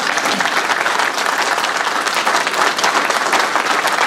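A roomful of seated people applauding together: many hands clapping in a dense, even spread with no break.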